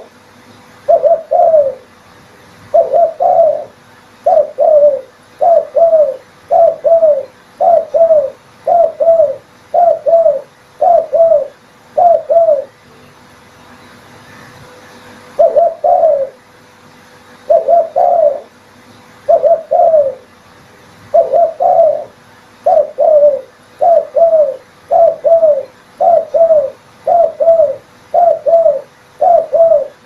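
Spotted dove cooing: a steady run of short phrases of two or three falling coo notes, about one phrase a second, with a pause of about three seconds near the middle before the calling resumes.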